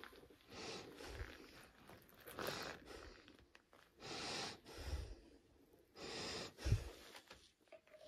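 A person breathing slowly and audibly, one noisy breath about every two seconds, with a few soft low thumps in between.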